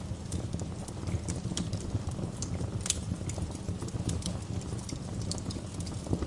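Wood fire in a fireplace crackling: a steady low rumble of flames with frequent sharp pops and snaps at irregular intervals, a few louder ones about three seconds in and toward the end.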